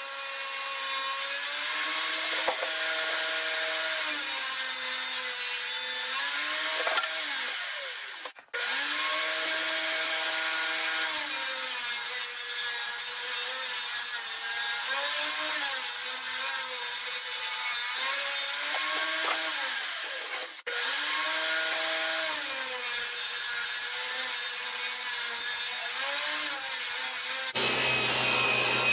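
Table saw running and ripping plywood. Its motor note sags each time the blade loads up in the cut and recovers as it frees up, several cuts in a row. Near the end it gives way to a different steady rushing noise.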